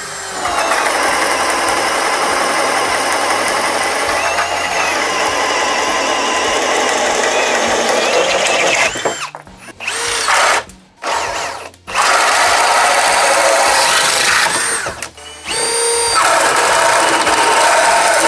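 Cordless 18V drills (Ryobi, then Ridgid, then Milwaukee M18 Fuel) boring through thick wood with a 2-9/16-inch Milwaukee Switchblade self-feed bit: a steady motor whine with the bit chewing wood. The first bore runs about eight seconds; after short breaks it is followed by two quicker bores of about three seconds each.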